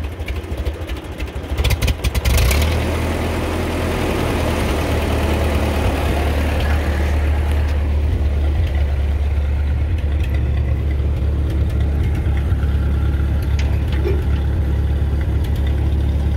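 Ferguson TO35 tractor's four-cylinder gasoline engine running roughly: choppy and uneven at first with a loud surge about two seconds in, then settling into a steady deep drone. The owner puts the rough running down to a carburetor that needs adjusting.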